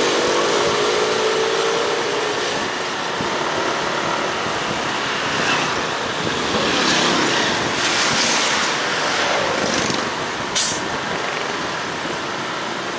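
Wind and road noise from a moving scooter in traffic, with an engine's note easing down over the first couple of seconds. A short sharp hiss comes about ten and a half seconds in.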